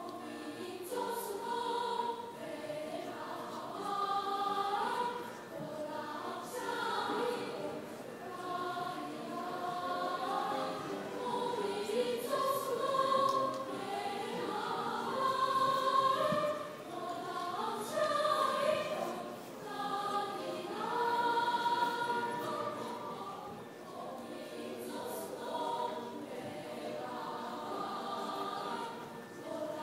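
A small choir of young voices singing a song together, phrase after phrase with swells in loudness.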